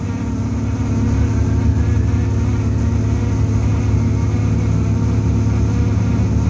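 Orion VII transit bus giving off a loud, steady low buzzing vibration with a drone beneath it, unchanging throughout. The uploader takes it to be probably coming from the heater.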